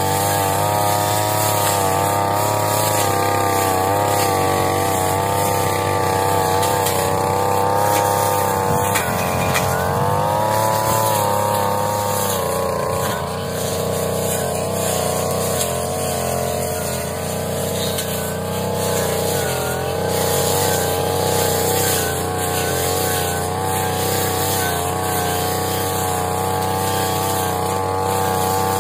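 Brush cutter engine running steadily at high speed, its pitch wavering and dipping briefly about ten seconds in.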